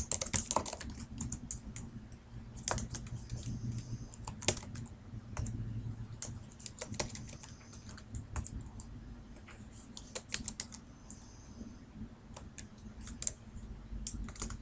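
Computer keyboard being typed on: irregular runs of key clicks over a low steady hum.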